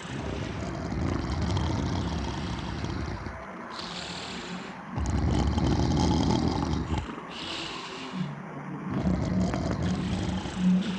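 Heavy snoring in three long, rough snores, each followed by a short hissing breath. The last snore, from about eight seconds in, has a steady buzzing pitch.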